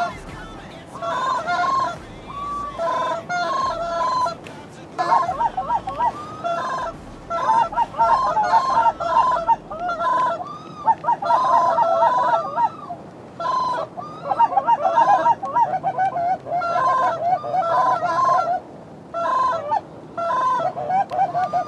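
Flock of Canada geese honking, many birds calling at once in dense overlapping bursts with brief lulls.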